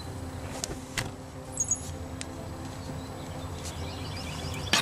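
Rubber vacuum hose being worked onto a vacuum tee fitting on the brake-booster line, a couple of light clicks about a second in, over a steady low hum.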